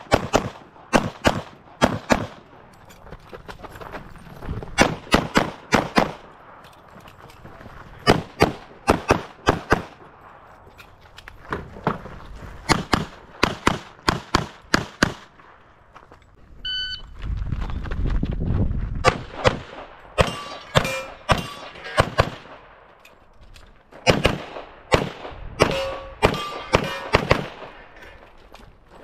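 Single-stack pistol fired in fast strings during a practical shooting stage, the shots mostly in quick pairs with short gaps as the shooter moves between positions. A short electronic shot-timer beep sounds about 17 s in, followed by a low rumble before the firing resumes.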